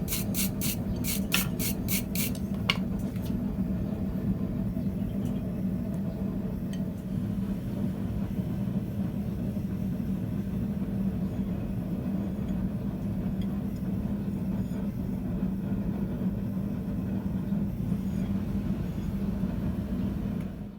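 A quick run of light metallic clinks in the first few seconds, over a steady low mechanical drone that carries on unchanged.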